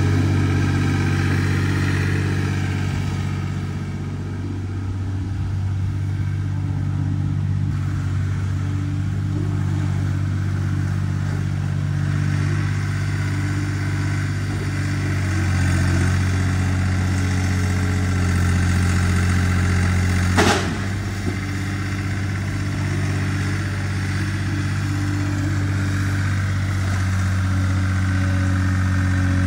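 A vehicle engine running steadily, its pitch shifting a little a few times. There is one short, sharp impact about two-thirds of the way through.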